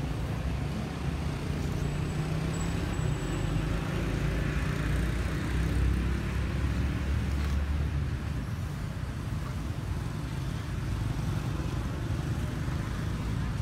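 Steady outdoor background rumble with an even hiss over it. No distinct event stands out.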